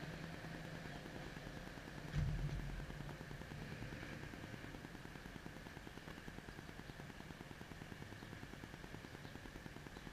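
Steady low outdoor background noise with a single dull thump about two seconds in.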